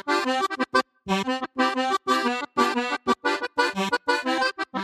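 Lively instrumental music played in short, rhythmic chords, about three or four a second.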